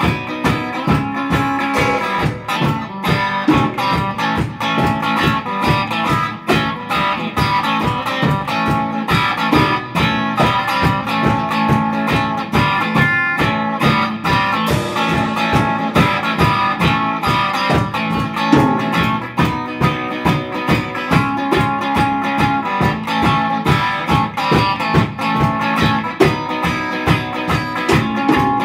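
Instrumental psychedelic rock from two electric guitars over a drum kit, with a steady beat.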